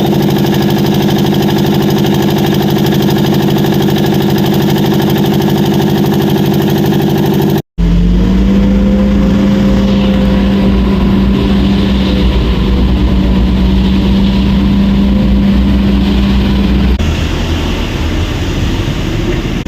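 Heavy machine engine running steadily. After a short break about eight seconds in, an engine runs on at a lower, steady pitch.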